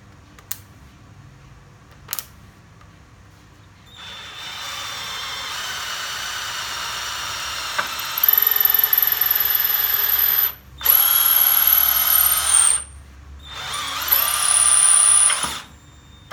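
DeWALT DCD700 cordless drill drilling into wood with a wood bit: two light clicks, then the motor starts about four seconds in and runs steadily, gets louder about eight seconds in, then stops and restarts twice in shorter runs.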